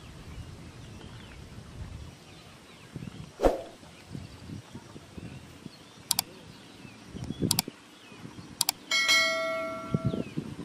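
Subscribe-button animation sound effects: three mouse clicks about six, seven and a half, and eight and a half seconds in, then a bell chime that rings out for about a second. A single sharp, loud hit comes earlier, about three and a half seconds in, over faint steady outdoor background noise.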